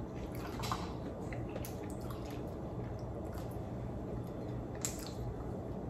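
Quiet eating sounds: a few faint wet clicks and smacks as cooked black mussels are chewed and picked from their shells by hand, over low steady room noise.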